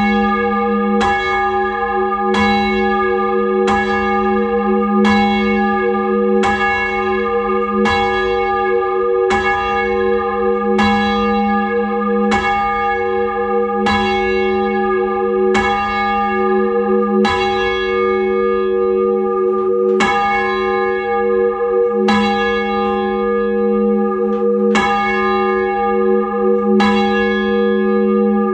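A ring of six church bells, tenor 10–2–12 cwt in the key of F, rung full circle by a band of ringers. The bells strike one after another at a steady pace, their tones ringing on and overlapping.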